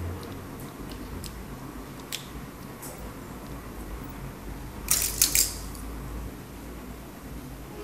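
Light plastic clicks and crackles as white plastic spoons are handled and pressed onto a plastic form during hot-gluing. A few faint clicks come in the first few seconds and a quick cluster of sharper clicks about five seconds in, over a low steady hum.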